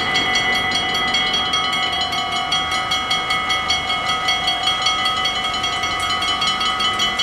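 Several mechanical level-crossing bells ringing together with rapid, evenly repeated strikes, a steady ringing clang: the warning that a train is approaching and the barriers are closing.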